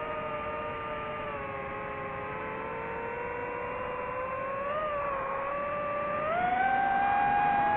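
DJI FPV drone's motors whining in flight, several close pitches wavering together with the throttle, then rising sharply about six seconds in and holding higher and louder.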